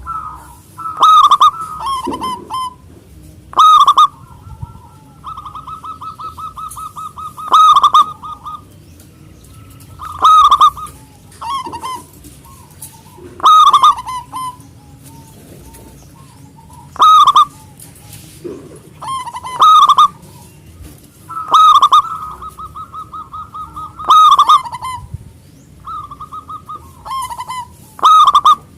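Male zebra dove (perkutut) singing: loud, ringing coos repeated about every three seconds, with quieter, rapid rolling trills between some of them.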